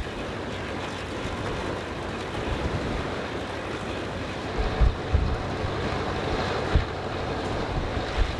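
Steady rushing noise with wind buffeting the microphone, a few low thumps of gusts standing out now and then.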